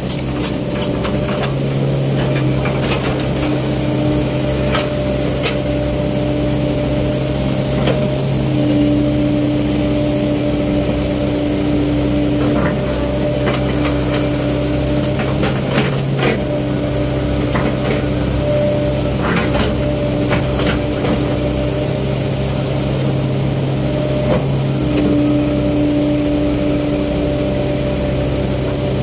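Sumitomo S265 hydraulic excavator running steadily as it digs, heard from the operator's seat, its engine and hydraulic hum swelling in several stretches as the boom and bucket work. Scattered short knocks and clanks come through over it.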